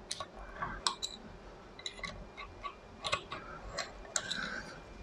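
Faint, irregular metallic clicks and scrapes of a steel drift catching in the holes of a threaded locking collar inside an Archdale milling machine's spindle head as the collar is wound round.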